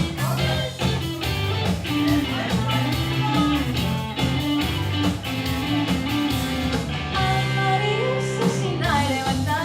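Rock-style music with guitar, bass and a steady drum beat playing.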